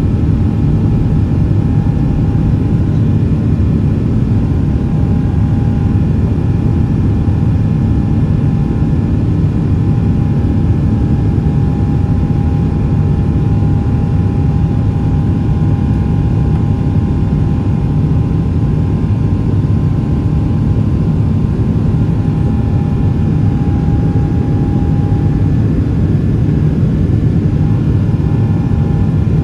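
GE90-115B turbofan of a Boeing 777-300ER at climb thrust, heard from inside the cabin just after take-off: a loud, steady roar with a few thin steady whining tones over it. The clearest of those tones fades near the end.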